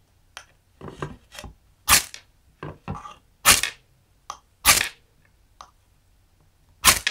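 Ferrocerium rod scraped hard with the flat edge of its striker, again and again: a series of short sharp rasping strikes, the strongest about a second apart with lighter scrapes between, throwing sparks at a paper strip that has not caught.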